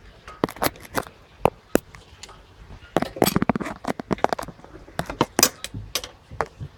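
Metal hand tools clicking and clinking as an Allen-key bit and extension are worked on a transmission fill plug: scattered sharp clicks, with a quick run of clicks about three seconds in.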